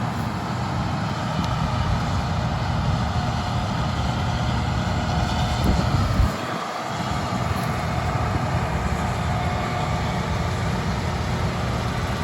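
Case IH 6088 combine harvester running steadily while harvesting soybeans, a loud continuous mechanical rumble. The rumble briefly drops out about six seconds in.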